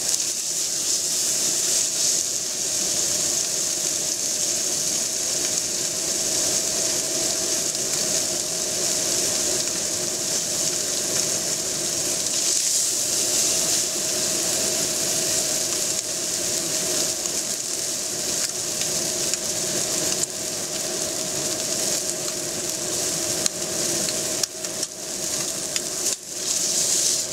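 Beef tenderloin searing in hot oil in a frying pan: a steady sizzle, with a low steady hum beneath it. It is seared about half a minute per side to seal it. Near the end there are a few light knocks as tongs turn the meat.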